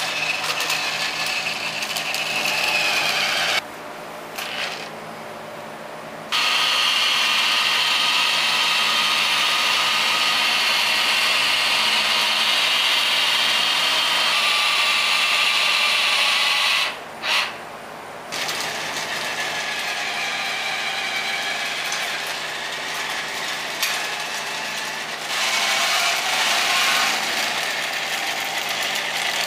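Rokenbok toy monorail's small electric motor and plastic gears whirring as it runs along the track. The whir cuts out twice, for a few seconds near the start and briefly just past halfway.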